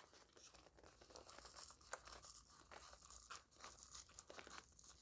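Faint crinkling and small tearing sounds, in scattered little ticks, as toy figure packaging is pulled open by hand.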